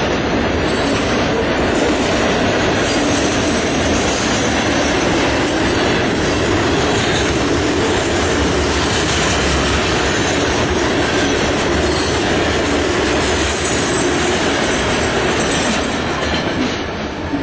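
Train passing close by, its cars rolling over the rails in a steady, loud rush of wheel noise that eases a little near the end.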